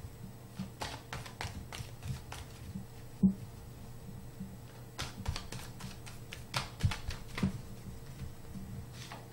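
Tarot cards being shuffled by hand: irregular soft clicks and taps of the cards against each other, one sharper tap about three seconds in.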